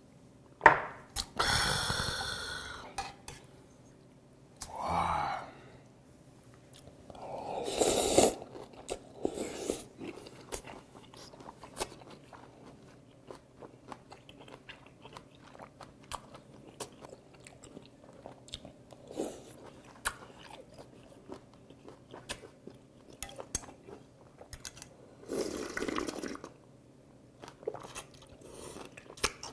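Close-up eating sounds of cold raw-squid mulhoe with ice: chewing and crunching, steel chopsticks clicking against a metal bowl, and a few louder sips or slurps.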